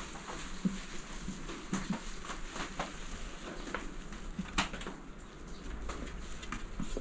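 Rain pattering steadily, with scattered light taps and drips through it.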